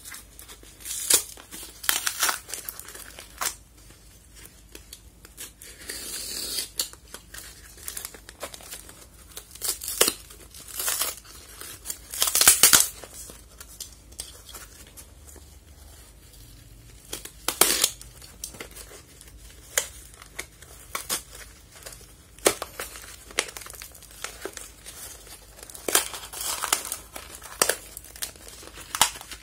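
A taped cardboard package being cut and torn open by hand: irregular rips and crinkles of cardboard and packing tape, coming in short bursts with pauses between.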